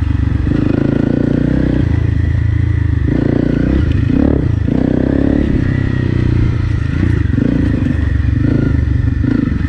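Honda CRF250 Rally's single-cylinder four-stroke engine running through an FMF Powercore 4 exhaust while the bike is ridden off-road, the revs rising and falling with the throttle.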